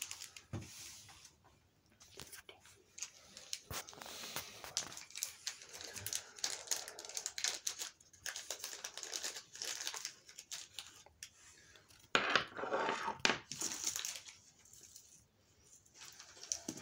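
Rustling and crinkling of a sheer organza drawstring pouch being worked open by hand, with scattered small clicks and knocks as a clear crystal point is taken out onto a wooden table.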